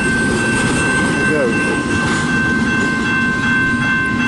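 CN intermodal freight train rolling past a grade crossing, its wheels rumbling and clattering on the rails. Under it the crossing's warning bell rings steadily, its strikes standing out more clearly in the last second or so as the end of the train clears.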